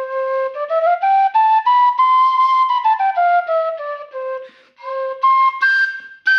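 Vasu wooden duct flute in the key of C, set for a breathy tone with air mixed into the sound, playing a scale: down to its low C, up about an octave and back down, then a few higher notes near the end.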